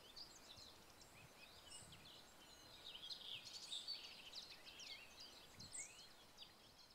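Several songbirds singing at once: a faint, busy mix of short high chirps and trills that overlap without a break.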